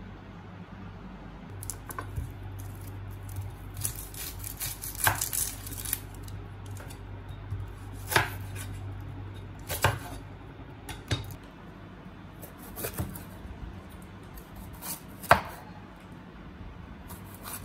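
Kitchen knife cutting onion and green bell pepper on a wooden cutting board: separate knocks of the blade on the board every second or two, with a quicker run of cuts about four to six seconds in. A low steady hum runs underneath.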